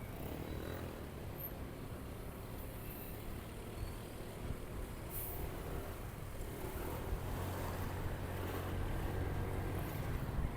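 Motorcycle engine running on the move, with road and wind noise; the engine gets louder about seven seconds in.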